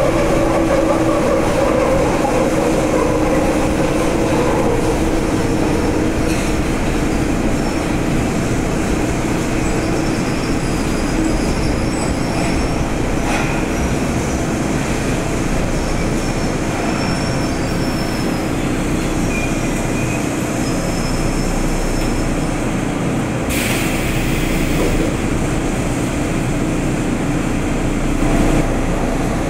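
Running noise of a São Paulo Metro Frota E (Mafersa/Alstom) subway train from inside the car, with wheels rumbling on the rail and a steady motor whine. The whine falls in pitch over the first few seconds, faint high wheel squeals come and go, and a brief hiss comes about three-quarters of the way through.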